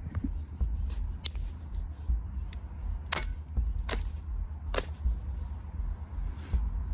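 Copper billet striking a limestone core in percussion flaking: five or six sharp, separate clicks a second or less apart, the loudest near the middle, as flakes are driven off the edges.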